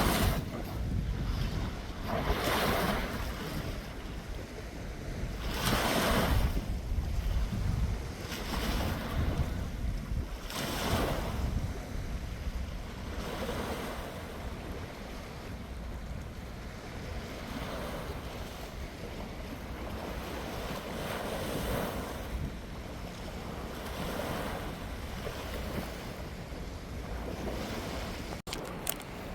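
Sea waves washing in, surging every few seconds, the surges stronger in the first half, with wind rumbling on the microphone.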